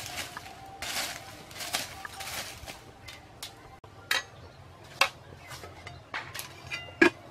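A metal ladle scraping in a steel cooking pot as braised chicken and cabbage are scooped out. Then a few sharp clinks and knocks, the loudest just before the end.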